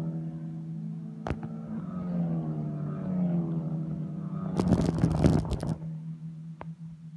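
Racing car engines running out on the circuit, their notes falling and rising in pitch, over a steady low hum. A loud crackling burst of noise cuts in for about a second, about five seconds in.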